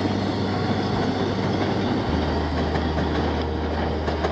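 Subway train running on the elevated tracks, a steady rumbling noise, with a low steady tone underneath that drops in pitch about two seconds in.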